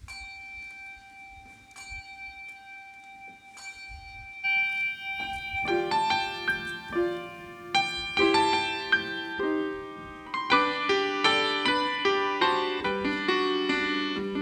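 Instrumental keyboard music beginning: a single held note for a few seconds, then fuller chords come in about five seconds in and grow louder.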